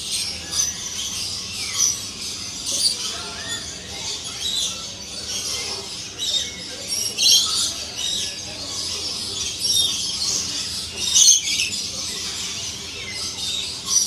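Many birds calling at once: shrill chirps and screeches that overlap, with louder clusters every second or so.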